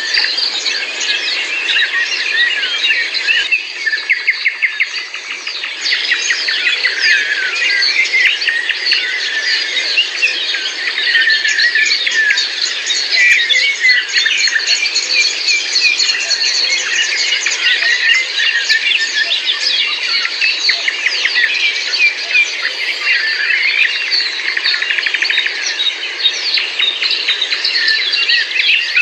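Many birds singing at once, a dense chorus of overlapping chirps, trills and whistles with no pauses.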